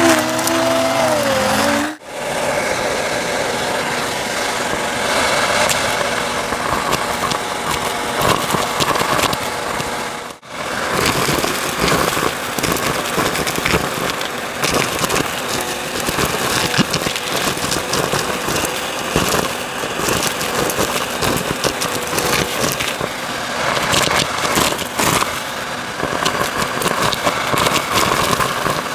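Bissell CleanView upright vacuum cleaner running, a steady motor whine under rapid crackling and rattling of debris being sucked up. The sound drops out briefly twice, about two seconds in and about ten seconds in.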